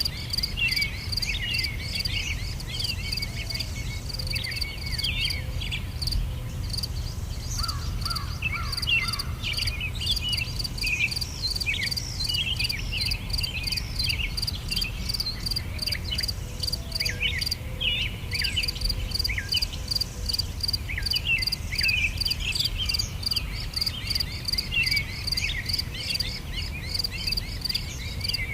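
Outdoor nature ambience: insects chirring in a steady, rapid high-pitched pulse, with many short bird chirps scattered throughout, over a low steady rumble.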